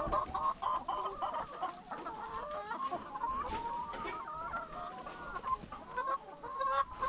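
A flock of laying hens clucking, with many calls overlapping throughout.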